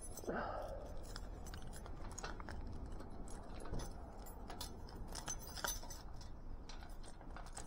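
A bunch of keys jangling, with scattered small metallic clicks, as a gate lock is being unlocked.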